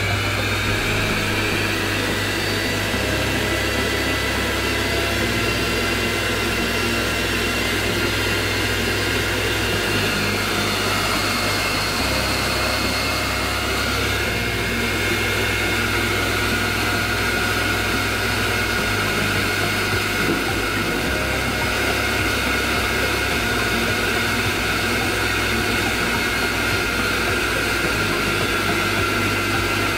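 Havells Premio i 750-watt mixer grinder motor running with no jar fitted, a steady machine whine. Its pitch shifts a few times as the speed setting is changed.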